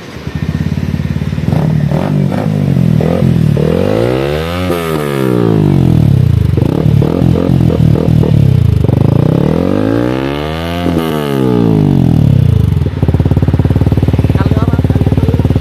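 Yamaha R15 V3's 155 cc single-cylinder engine through an aftermarket Akrapovič R1M-style exhaust, revved in the stand. It blips a few times, then twice climbs steadily in pitch and falls back, with quick blips in between, and settles to a steady idle near the end.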